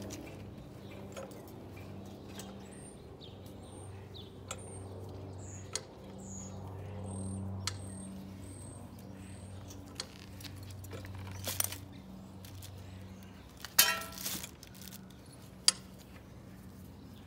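Scattered clicks and clinks of a steel motorcycle exhaust header pipe being handled as it is wrapped in heat-wrap tape, with a louder rattle about fourteen seconds in and a sharp click soon after. A bird chirps a quick run of short high notes in the first half, over a low steady hum.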